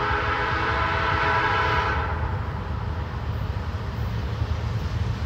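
Norfolk Southern diesel locomotive's air horn sounding a chord of several tones at once, cutting off about two seconds in, over the steady low rumble of the train that continues after it.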